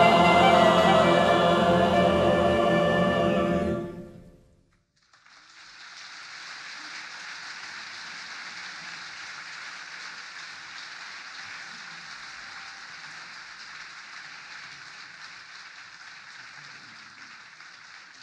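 Choir with piano and cello holding the final chord of a song, which dies away about four seconds in. After a brief pause, steady audience applause.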